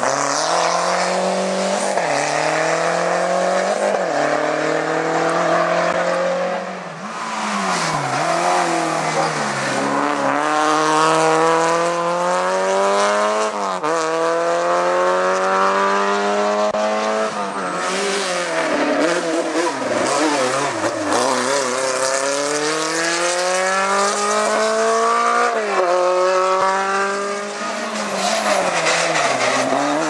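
Small rally hatchbacks' engines driven flat out uphill, one car after another. The revs climb in each gear and fall sharply at each upshift or lift, about a dozen times.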